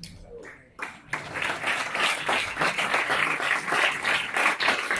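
Audience applauding, swelling in about a second in and continuing steadily.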